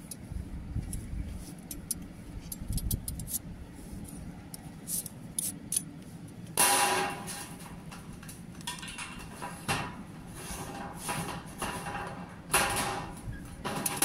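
Hand snips cutting through a painted sheet-metal flashing tray, in three stretches of cutting from about halfway in, with light metal clicks and taps before.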